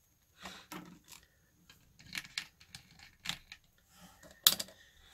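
Small hand tools being handled on a cutting mat: multimeter probes and side-cutting snips clicking and tapping, with one sharper click about four and a half seconds in.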